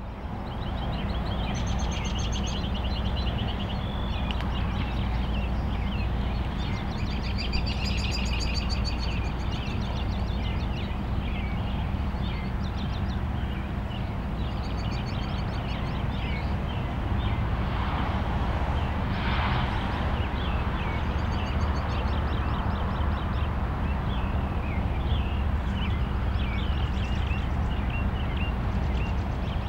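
Birds chirping and singing in repeated short phrases over a steady low rumble, with a brief swell of rushing noise about two-thirds of the way through.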